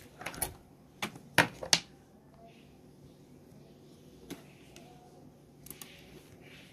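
Sharp plastic clicks of a computer keyboard and mouse: a quick run of about six in the first two seconds, the loudest about one and a half seconds in, then a few faint ones later.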